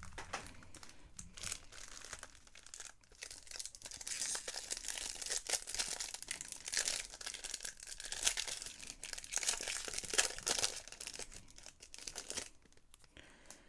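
Foil wrapper of a trading-card pack being torn open and crinkled by hand. Soft rustling at first, then dense crackling and tearing from about four seconds in until shortly before the end.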